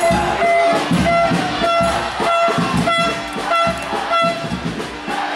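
Background music: a short melodic figure repeated about twice a second over a steady beat.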